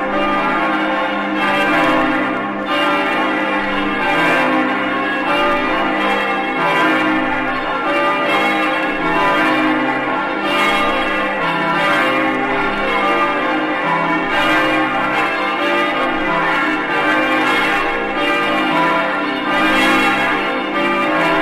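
Carillon bells of the Matriz Basílica of Aparecida being struck one after another in a changing sequence of pitches. Each bell rings on under the next.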